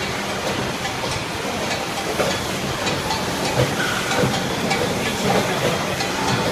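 Automated doypack pouch packing line running: a steady hiss of machine noise with faint, irregular light ticks from the conveyors and pouch handling.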